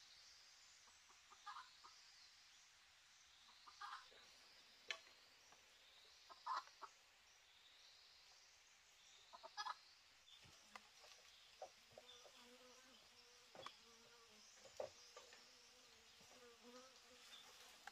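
Very faint outdoor sounds: short chirping calls every few seconds over a faint high insect hum, with scattered soft clicks and knocks. From about ten seconds in, a low, broken, repeated call comes in.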